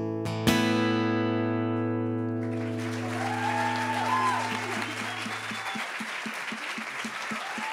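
Final strummed chord on an acoustic guitar ringing out and slowly fading. About two and a half seconds in, an audience breaks into applause and cheering, which carries on as the chord dies away.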